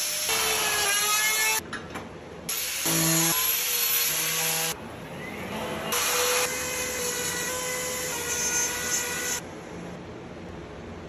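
Handheld electric power tools working on wood, heard as several short clips cut together with abrupt breaks. About half a second in, a small motor spins up with a rising whine. Later a steadier motor whine runs for a few seconds before a sudden drop to quieter noise.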